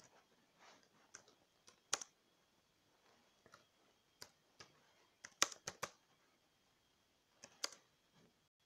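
Faint, sporadic clicks from a computer keyboard and mouse: single clicks a second or so apart, a quick run of about six a little past the middle, and a pair near the end.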